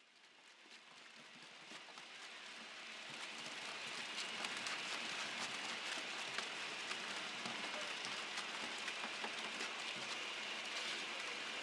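Pomegranate-crushing machine running, with whole pomegranates, arils and bits of peel rattling and clicking against its stainless-steel chute and paddles in a dense, steady clatter. It fades in over the first few seconds.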